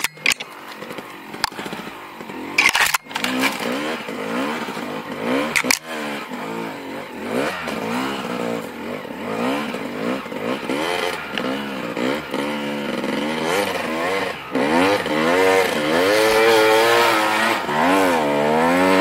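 Snowbike (a dirt bike on a snow track kit) engine revving up and down again and again as it rides, getting louder near the end. A few sharp knocks come in the first six seconds.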